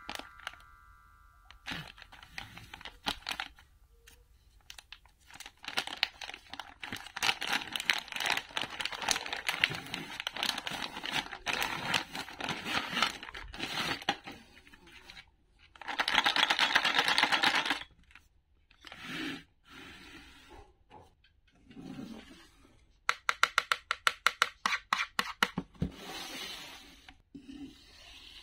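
Clear plastic film wrapping being crinkled, rustled and torn off, with one long steady rip of about two seconds past the middle. About three-quarters through comes a quick run of sharp clicks and knocks.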